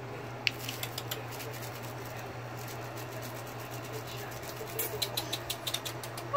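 Quick, irregular clicks and taps, most likely a small puppy's claws on a concrete floor: a short run about half a second in and a denser run in the last second and a half. A steady low hum runs underneath.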